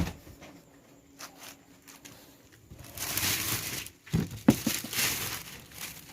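Plastic sheeting being handled, rustling and crinkling in two stretches from about three seconds in, with a few sharp knocks between them.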